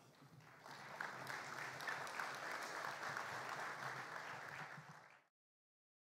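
Audience applauding, picking up about half a second in and fading out after about five seconds.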